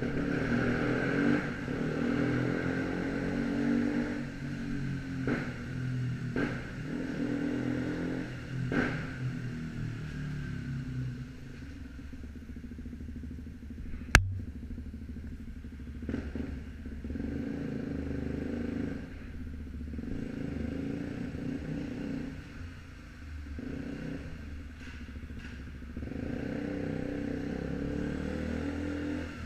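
KTM Duke 125's single-cylinder engine through an Arrow exhaust, rising and falling in pitch for about the first ten seconds, then settling into a lower, steadier run. A single sharp crack about fourteen seconds in.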